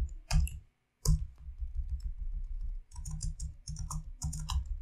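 Typing on a computer keyboard: irregular runs of quick keystrokes, each with a dull thud, and a short pause a little under a second in.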